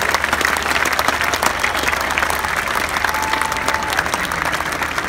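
Large outdoor concert crowd applauding and cheering as a song ends, a thick steady patter of many hands clapping. A single steady note from someone in the crowd is held for under a second about three seconds in.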